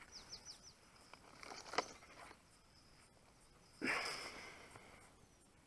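A bird gives four quick falling chirps, then a thin high note is held for a couple of seconds. There is a faint click, and a short rustle of handling about four seconds in.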